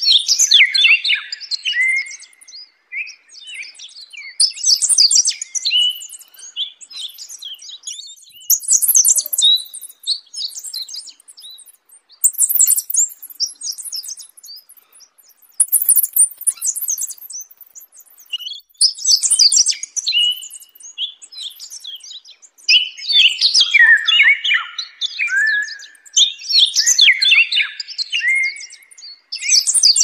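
Songbirds singing: high, rapid chirping phrases of one to three seconds each, repeating every few seconds with short pauses between them.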